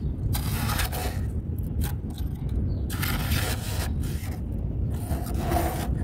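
Metal spoon scraping and scooping through soft, dry freezer frost, giving three main crunchy scraping strokes with smaller scrapes between them. A low steady rumble runs underneath.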